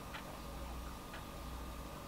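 Two faint, light ticks about a second apart over a low steady hum.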